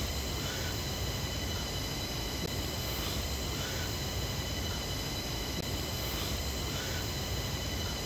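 Steady low rumble of a vehicle in motion, with faint constant high-pitched whining tones above it.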